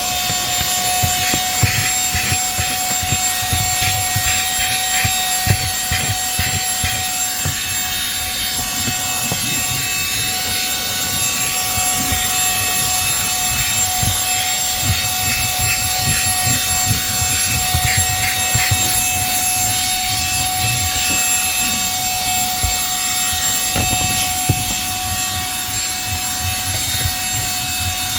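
ONAVOT 35000Pa cordless handheld vacuum running steadily at full suction with a high motor whine over a rushing hiss. Irregular low bumps and rattles sound underneath as it cleans.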